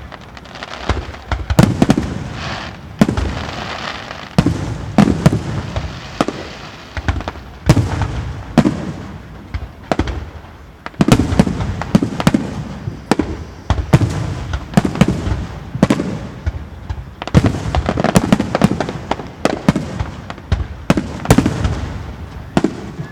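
Aerial fireworks shells bursting in quick, irregular succession, sharp bangs each followed by a low rolling echo, with crackling in between.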